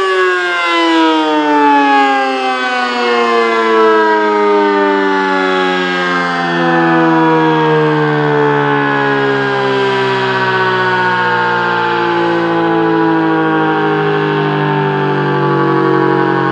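ACA P-50 electromechanical warning siren winding down: its tone slides steadily and smoothly lower as the rotor coasts to a stop. It is shutting off after only about 15 seconds of alert, because it got its activation and deactivation tones mixed up.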